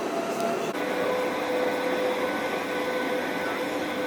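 Steady running noise of a moving train heard from inside, with a steady motor whine that shifts to a lower pitch under a second in.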